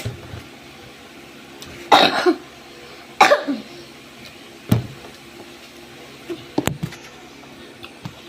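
A person coughing twice while eating, about two and three seconds in, followed by a few short clicks.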